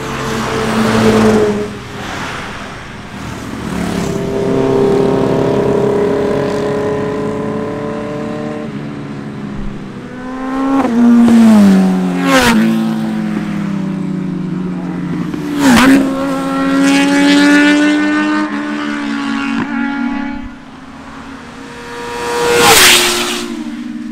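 Eicher lorry's diesel engine, fitted with a Racefit aftermarket exhaust, revving loudly and driving past, its note climbing and then falling steeply as it passes, twice over. After a sudden drop in level, a second vehicle passes loudly near the end.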